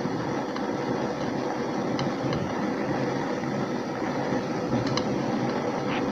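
Water boiling in a pan with an egg poaching in it, while a metal spoon moves through the water and scoops it over the egg. There are a few light clicks from the spoon against the pan.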